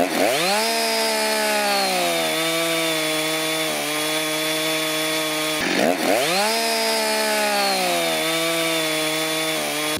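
Small two-stroke petrol chainsaw, mounted in a vertical chainsaw mill, running steadily as it rips lengthwise down through a log. Twice, at the start and about six seconds in, its pitch dips sharply and climbs back up.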